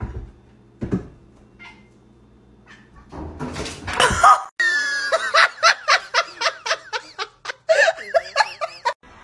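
Cats crying out in a quick run of short, wavering calls, about four a second, loud through the second half. Before them come a couple of soft thumps over a low hum.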